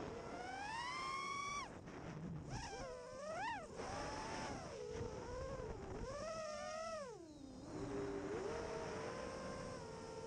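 Brushless motors and propellers of a 5-inch FPV racing quadcopter whining. The pitch rises over the first couple of seconds, then cuts off, swoops sharply up and down twice as the throttle is worked, and settles into a steadier, lower whine near the end.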